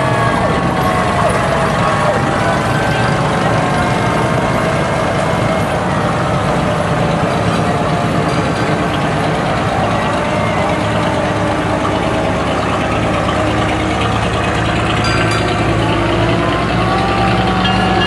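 Vintage fire trucks' engines running steadily as they drive slowly past. A fire-truck siren winds down in the first second or two and faintly rises again near the end.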